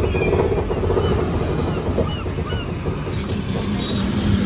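Loud, steady rumble of the tour tram mixed with the Jaws attraction's show effects, with short high squeaky calls over it early on. About three seconds in it turns hissier and brighter.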